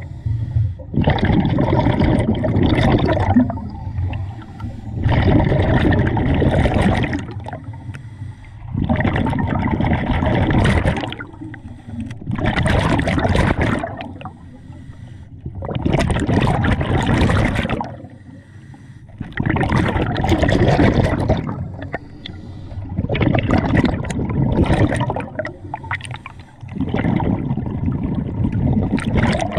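Scuba diver breathing through a regulator underwater: a bubbling rush with each exhalation, about eight times, every three to four seconds, with quieter gaps between.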